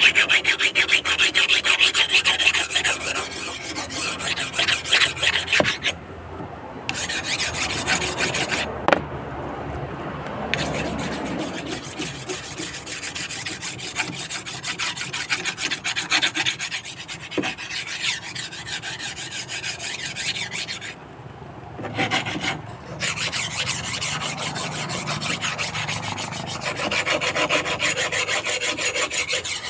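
A steel machete blade being sharpened by hand: rapid back-and-forth scraping strokes of metal against the sharpening tool, stopping briefly three times.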